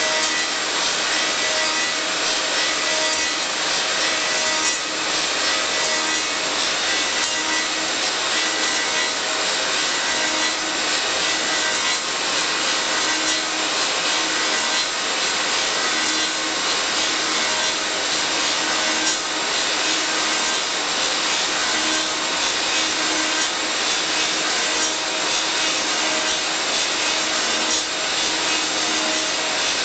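Elio Valeri 4M/65E automatic wood copy lathe running, its cutters working wooden blanks: a steady, dense rasping of wood being cut over a constant machine hum, without a break.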